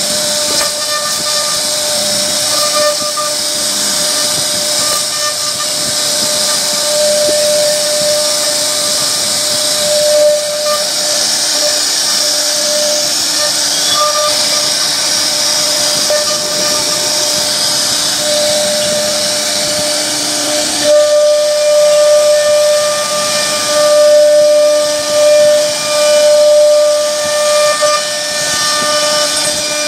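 CNC router spindle whining steadily as its bit carves a wooden door panel, with a hiss of wood being cut. About two-thirds of the way in the sound gets louder and more uneven.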